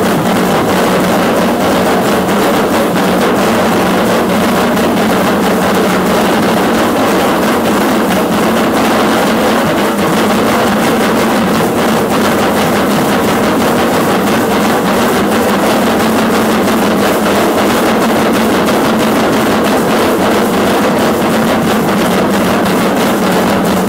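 Loud, unbroken drumming with dense rattling for an Aztec Concheros dance, typical of huehuetl drums and the dancers' seed-pod ankle rattles.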